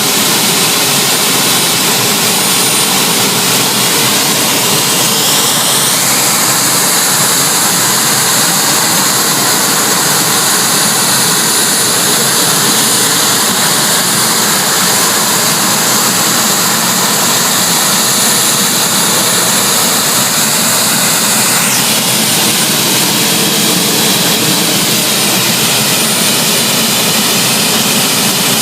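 Gas turbine engine of a turbine-powered pulling tractor running during warm-up: a loud, steady jet-like whine. Its pitch rises about five seconds in, holds, and falls back abruptly some twenty-two seconds in.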